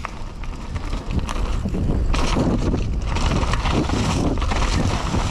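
Mountain bike on a dirt downhill trail: tyres and frame rattling over the ground under wind noise on the microphone, getting louder about a second in.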